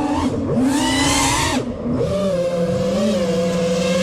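FPV racing quadcopter's brushless motors (Mr Steele V1 motors on a 4S pack) whining. About half a second in, a throttle punch sends the pitch up, and it drops again about a second later. A steadier, lower hum follows.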